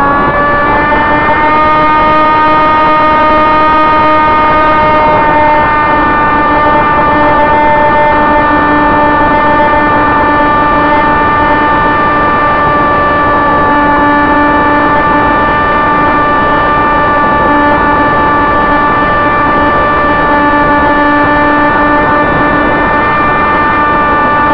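Electric motor and propeller of a Sonic Modell AR Wing flying wing heard from its onboard camera: a loud, steady whine that climbs in pitch in the first second or so as the throttle comes up, then holds level. A rush of wind over the airframe runs underneath it.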